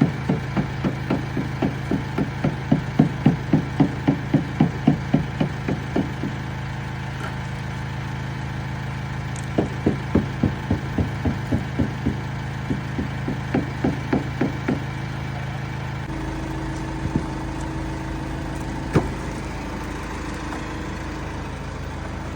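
A boatyard travel lift's engine runs steadily, with a regular knocking about three times a second in two runs, one at the start and one in the middle. About two-thirds of the way through the engine note changes, and two single sharp knocks follow.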